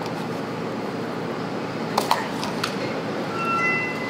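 Steady room hum, with two sharp clicks about two seconds in and a fainter one just after, then a few short high tones near the end.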